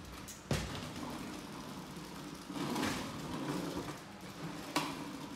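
Hard plastic wheels of a toy ride-on swing car rolling and rumbling over a tiled floor, with a sharp plastic knock about half a second in and another near the end.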